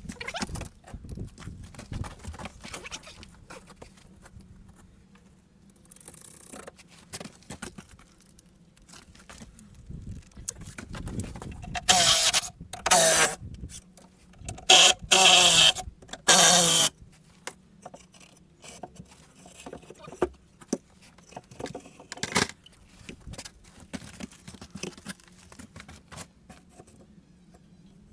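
A timber arch former being taken apart, with repeated clatter and knocks of wood and tools. About halfway through come four short, loud bursts of a cordless drill-driver backing out screws.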